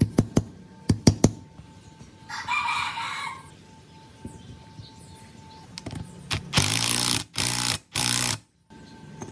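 Impact wrench run in three short bursts near the end, tightening the nut that holds the pulley on a small air compressor pump's crankshaft. Before that, a few sharp metal clicks in the first second or so.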